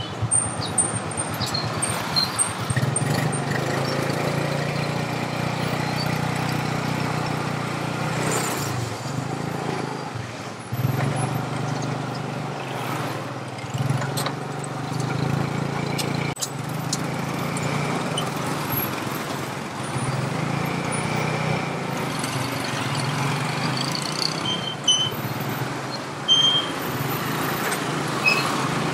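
A motor vehicle engine running continuously, its low note swelling and easing every few seconds as if under way, with short high chirps now and then.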